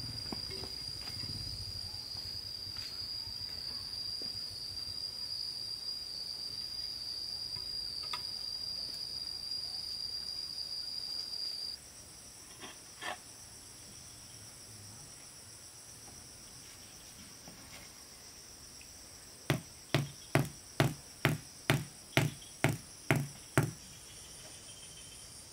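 Insects trilling in one steady high tone that cuts off about twelve seconds in, leaving a fainter, higher trill. Near the end, a run of about ten sharp knocks, a little over two a second, louder than the insects.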